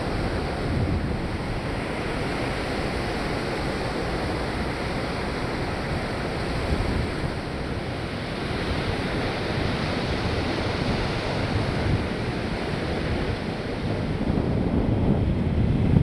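Ocean surf breaking and washing up on a sandy beach, a steady rushing with wind buffeting the microphone, growing a little louder near the end.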